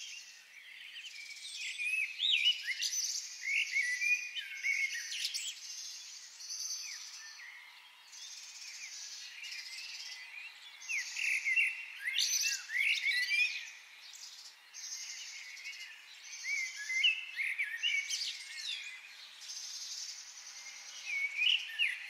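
Several songbirds singing and calling together, short chirps and whistled phrases overlapping throughout, with a high buzzing trill that recurs every second or two.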